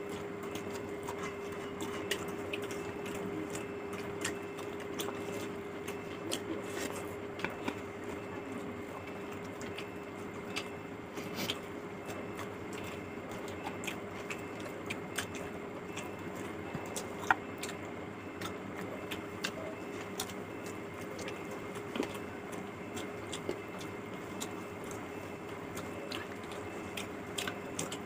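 Close-miked eating sounds: chewing with small wet mouth clicks, and fingers squishing and mixing curry-soaked rice on a plate. A steady low hum runs underneath.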